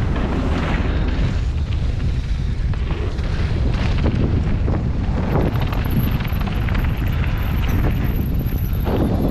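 Wind buffeting the microphone of a camera riding on a mountain bike during a fast trail descent, a heavy steady rumble, with irregular rattles and knocks from the bike over the rough ground.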